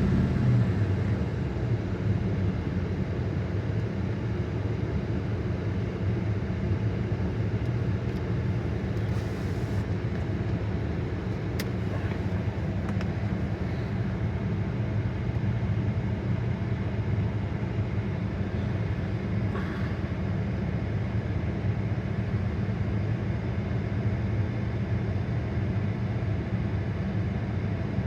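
Car engine idling steadily, settling back from a rev in the first second. The engine has the cold-start misfire on cylinder 2 that the owner is chasing.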